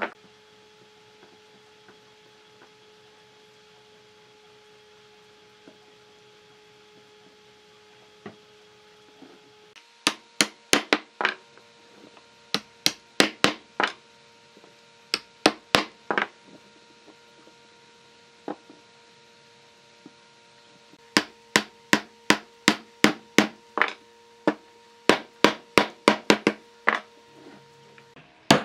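Wooden mallet knocking wooden frame parts together, driving tenons home into their mortises. The blows start about ten seconds in and come in quick runs of several sharp knocks, about three or four a second, with short pauses between runs.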